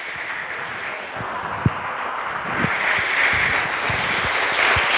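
Church congregation applauding, growing louder over the few seconds, with single claps standing out here and there.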